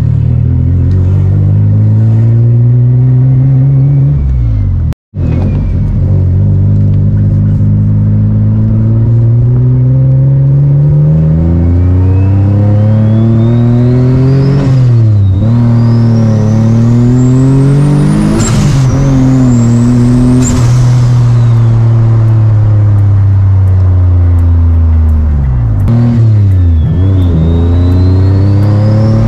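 Single-turbo Infiniti G35's VQ V6 pulling hard through the gears, its note climbing and dropping at several gear changes. A thin turbo whistle rises with the revs and cuts off sharply at the shifts.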